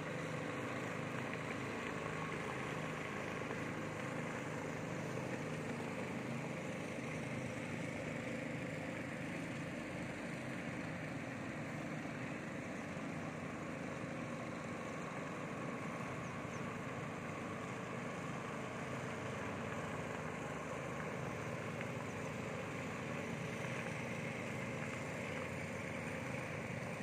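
A boat engine running steadily: an even drone that holds the same pitch and level throughout, with no revving or breaks.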